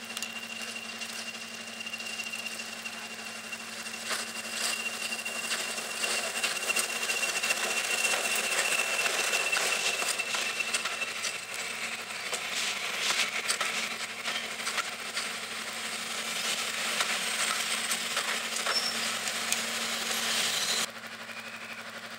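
BR Class 20 diesel locomotive, its English Electric 8SVT engine running as it comes up and passes hauling a train of coaches, with a steady high whine in the first half. This is followed by the clicking and clatter of the coach wheels running over the rail joints. Near the end it cuts to a quieter idling diesel.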